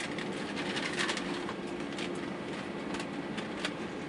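Steady cabin hum of an Airbus A320 taxiing on the ground after landing, with scattered light clicks, the strongest about a second in.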